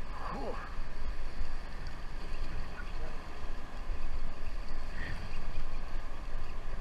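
Steady wind buffeting the microphone over the low rumble of a sportfishing boat at sea, with a brief gliding squeal right at the start.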